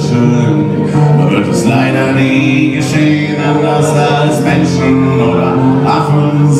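Live acoustic guitar strumming with a violin playing along, an instrumental passage between sung verses.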